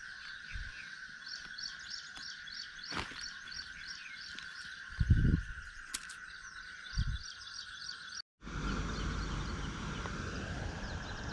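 Small birds chirping in a fast series of repeated short notes over a steady high-pitched drone, outdoor ambience. Two low thumps come about five and seven seconds in. After a brief dropout a little past eight seconds, a low rumble joins the chirping.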